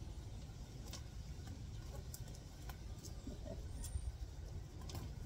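Hand-weeding a gravel path: scattered small clicks and rustles as grass is pulled out and the gravel stones shift, over a steady low rumble.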